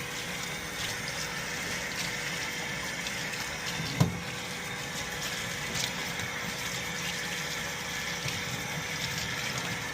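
Steady rush of running water, as from a tap, with a single sharp knock about four seconds in.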